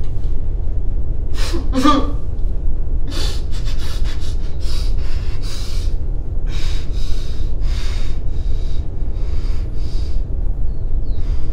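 A young man's voice gives a short laugh about two seconds in, then breaks into a rapid string of breathy gasps and sobbing breaths, laughter turning to crying. A steady low rumble runs underneath.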